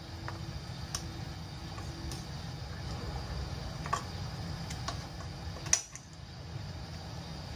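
Wooden chopstick clicking now and then against a bowl and metal plates as pork chop pieces are dipped in egg and coated in cornstarch: a few sharp ticks, the loudest about six seconds in, over a steady low hum.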